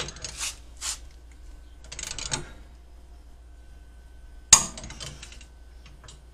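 Torque wrench being worked on the brake caliper bracket bolts: several sharp ratchet clicks in the first second, then one loud metallic clank about four and a half seconds in.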